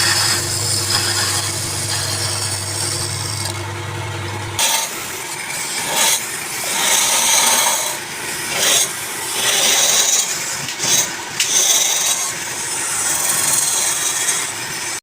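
Wood being rubbed and scraped in uneven strokes with short gaps, as in sanding or finishing a turned piece. A steady low motor hum runs under it and stops suddenly about four and a half seconds in.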